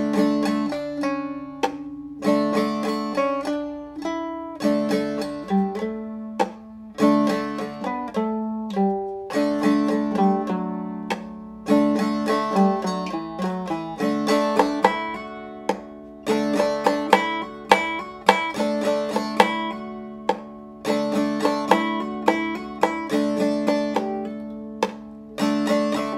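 Instrumental soundtrack music: a quick run of plucked-string notes that ring and fade, over held low notes.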